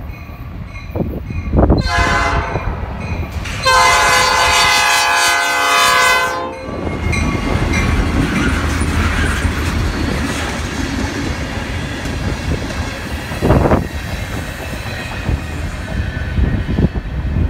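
Diesel freight locomotive's air horn sounding for the grade crossing: a shorter blast about 2 s in, then a loud long blast lasting about three seconds. The crossing bell dings at the start, then the freight cars roll past with a steady rumble and clatter of wheels on the rails, and a single loud knock comes near the end.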